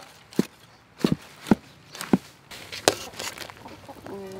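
Metal ladle knocking and scraping against a steel wok while leafy greens are stir-fried: about six sharp, irregular clanks over the first three seconds.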